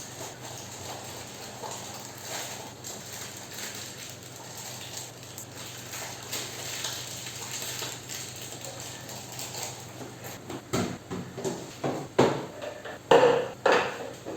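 Dishes and kitchen utensils being handled, clattering and knocking together. A steady low hiss at first, then for the last few seconds a quick, irregular run of sharp knocks and clinks.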